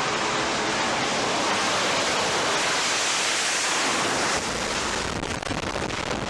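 Steady jet roar from an AV-8B Harrier II's Rolls-Royce Pegasus turbofan, an even rushing noise that eases slightly about four seconds in.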